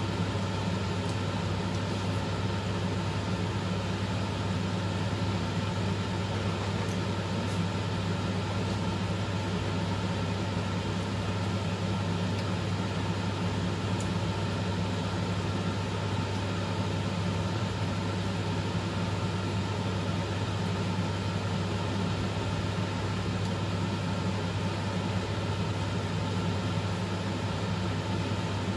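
Steady machine hum: a constant low drone with an even hiss over it, unchanging throughout.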